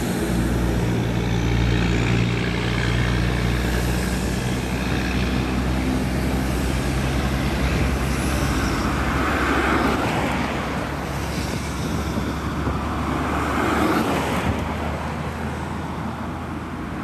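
Heavy truck diesel engine running at a steady, even pitch. Its low hum thins out over the second half while road noise carries on.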